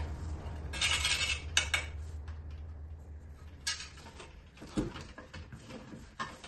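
Metal parts of a child's kick scooter clicking and clinking as the handlebar and stem are handled and fitted together, with two short scraping noises, about a second in and past the middle.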